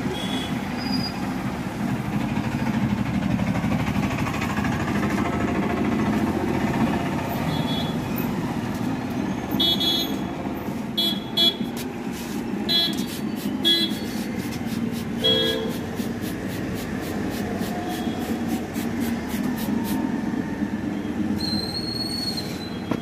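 Steady rumble of road traffic, with a string of short vehicle horn toots in the middle and a longer high beep near the end.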